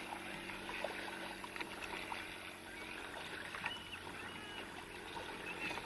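Kayak paddling on water: paddle blades dipping and water lapping against the hull, with small scattered splashes. A few short high chirps come about three and a half seconds in.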